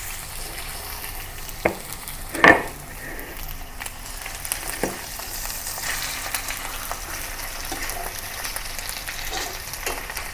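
Cornstarch-coated pork chops sizzling in hot oil in a stainless-steel skillet, a steady frying hiss. A few sharp clicks of metal tongs against the pan cut through it, the loudest about two and a half seconds in.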